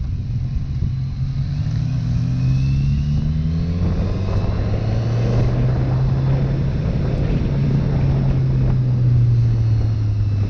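Motorcycle engine pulling under throttle while riding, its pitch climbing between about two and four seconds in and then holding steady, with wind rushing over the microphone.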